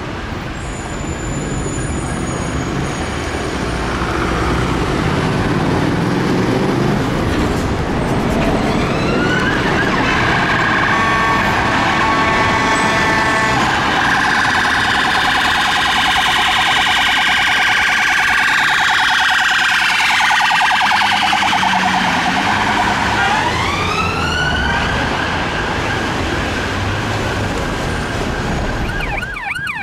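Police car siren moving through traffic, switching between a slow rising-and-falling wail and a fast warbling yelp over the noise of engines and tyres. It is loudest around the middle.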